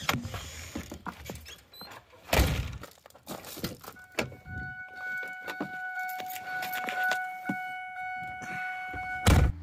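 Handling around a car: a thunk about two seconds in and key-like rattles, then a steady electronic tone for about five seconds that stops with a loud thunk near the end.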